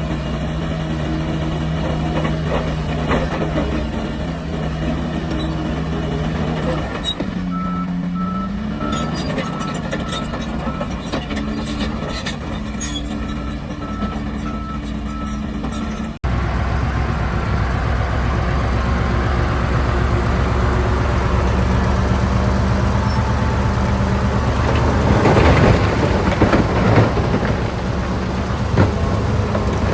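Diesel engines of heavy earthmoving machinery running, one revving up briefly, with a reversing alarm beeping at an even pace for several seconds. After an abrupt cut about halfway, louder engine noise continues, with a rattling rush swelling up a few seconds before the end.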